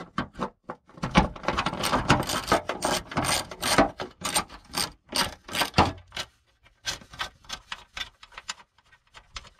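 Ratchet wrench clicking in quick runs as it turns out a fender mounting bolt. The clicks are dense for the first several seconds and thin out to scattered clicks after about six seconds.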